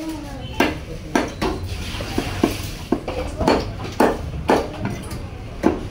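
Large fish-cutting knife working through Spanish mackerel on a wooden chopping block: about ten sharp knocks at uneven intervals as the blade strikes the block, with a steady low rumble behind.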